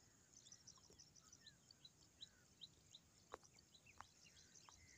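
Near silence, with faint bird chirps repeating in the background and a few faint clicks.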